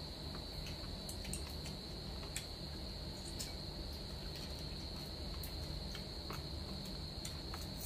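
Insects trilling in one steady high-pitched note, with scattered faint light clicks.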